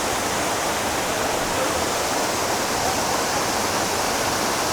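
Waterfall rushing, a steady, unbroken noise of falling water close by.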